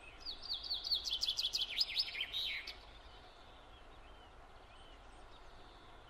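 A songbird singing a fast run of short chirps, each falling in pitch, for about two and a half seconds.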